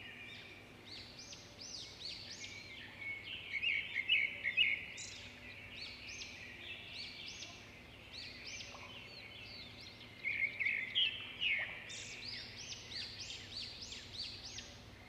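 Birds chirping and calling in quick, busy bursts, loudest about four seconds in and again around ten to twelve seconds.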